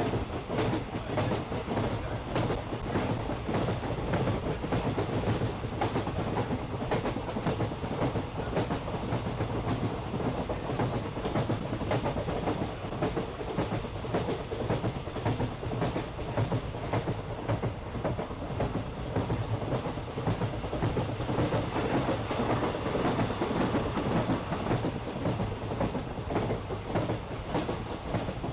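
Park toy train running along its track: a steady low running noise with frequent clicks of the wheels over the rails.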